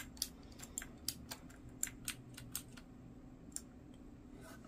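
Mechanical keyboard keys clicking as they are pressed on a Fidio wireless gaming keyboard: a quick, irregular run of faint clicks over the first two and a half seconds, then two more spaced out near the end.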